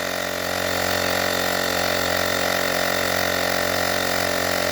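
Handheld battery-powered tyre inflator running steadily, its small motor-driven pump making an even buzzing hum as it pumps up a motorcycle tyre.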